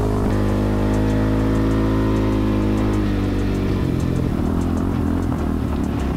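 ATV engine pulling under throttle, its pitch rising slowly for about three seconds. It then backs off to a rougher, lower-pitched running.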